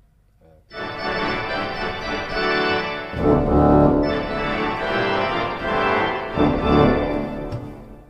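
Large Van den Heuvel pipe organ playing sustained chords on a reed-based registration of Bazuin 16, Trompet 8 and Octaaf 4. The sound begins just under a second in, deeper bass notes join about three seconds in, and it stops shortly before the end.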